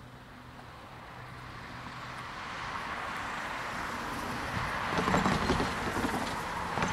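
Approaching freight train hauled by diesel locomotives, the engine rumble and wheel noise growing steadily louder as it nears, loudest from about five seconds in.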